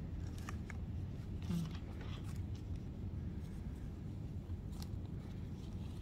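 Quiet room tone: a steady low hum with a few faint clicks and taps as painting tools are handled.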